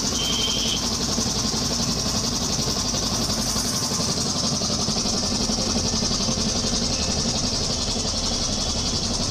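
Belt-driven air compressor running steadily, its 1 HP Crompton electric motor turning the Modi Master piston pump by V-belt as it pumps air into the receiver tank.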